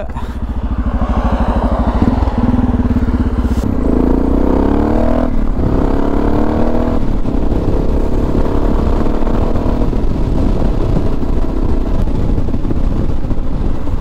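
Suzuki DR650's single-cylinder four-stroke engine running as the bike is ridden, the revs climbing, dropping back and climbing again about four to seven seconds in, then holding steadier.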